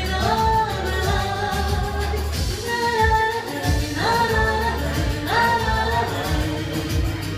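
Live band playing dance music: a singer's held, sung phrases over keyboard accompaniment and a steady bass beat.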